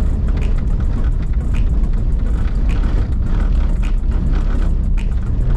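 Dodge Ram 2500 pickup driving on a gravel dirt road, heard from inside the cab: a steady low rumble of engine and tyres on the road, with frequent light rattles.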